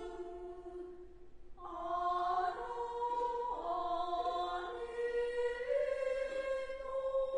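Slow traditional Japanese stage singing for a dance: a voice holding long notes that step up and down in pitch, with a new phrase entering about one and a half seconds in.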